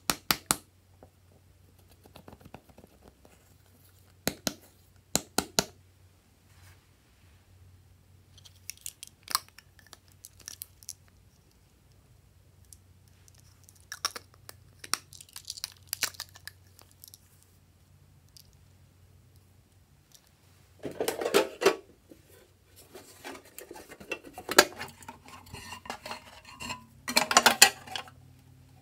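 Hands handling plastic makeup cases over glass trays: a few sharp clicks and taps, then denser scraping and rattling from about three quarters of the way through.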